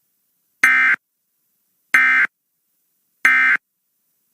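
Emergency Alert System SAME end-of-message signal: three short bursts of digital data tones, each about a third of a second long and about a second and a quarter apart. The bursts mark the end of the broadcast warning.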